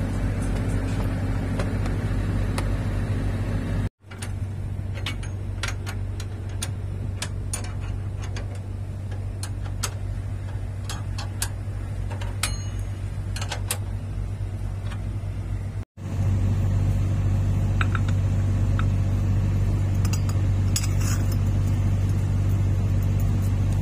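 Heavy truck engine idling with a steady low hum, broken twice by edits. In the middle stretch, scattered light metal clicks and taps of a hand tool working a bolt under the truck.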